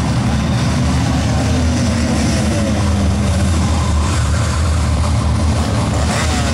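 A loud, steady low engine-like drone, with faint gliding tones over it about two seconds in and again near the end.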